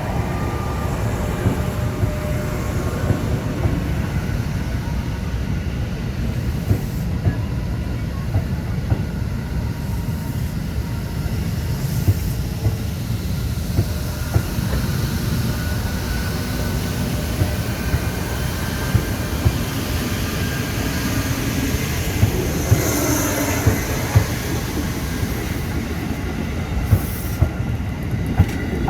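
Electric commuter train (KRL) running on the line with a steady low rumble, its wheels clacking over rail joints again and again.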